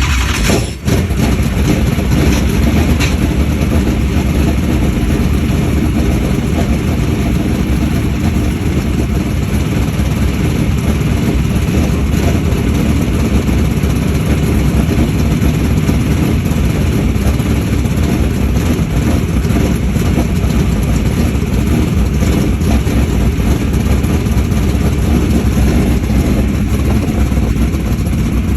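Dirt modified race car engines running loud and steady.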